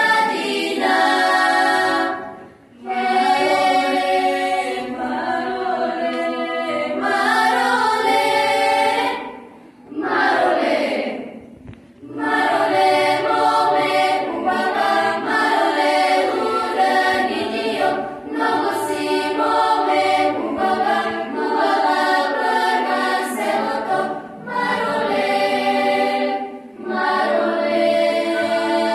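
Girls' choir singing a Bulgarian folk song unaccompanied, in phrases separated by short breaks, with a falling slide in pitch between phrases about ten seconds in.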